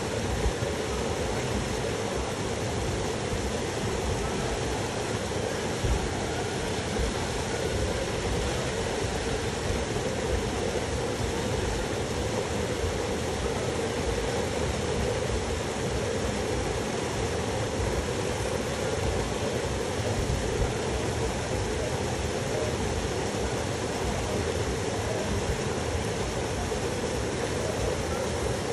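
Small river waterfall pouring into a pool: a steady rush of water.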